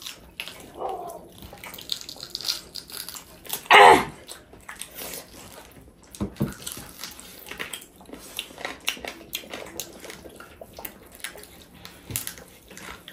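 Wet chewing and smacking of tough buffalo meat, a steady run of small moist clicks, with one short vocal sound about four seconds in.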